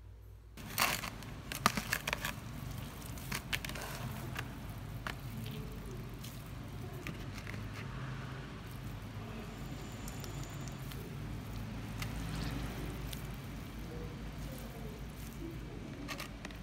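Hands squeezing and kneading water-soaked sandwich bread in a bowl, making soft wet squishing. A few sharp knocks and clicks in the first couple of seconds, over a steady low hum.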